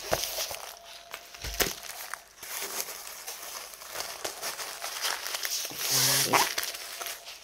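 Paper and a thin plastic bag being handled: a sheet of paper rustling as it is folded, and plastic crinkling. About six seconds in there is a short pitched sound, the loudest moment.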